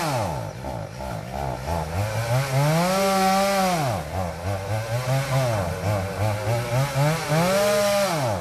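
Two-stroke chainsaw cutting into a jackfruit tree, its engine revving up to a high held pitch and dropping back several times, with quicker throttle blips in the middle.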